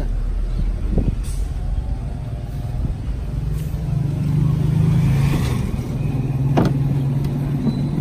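A vehicle engine running at a steady idle, its low hum growing stronger about three seconds in. Two sharp knocks, about a second in and near the end, as wooden door frames are shifted on the pickup's bed.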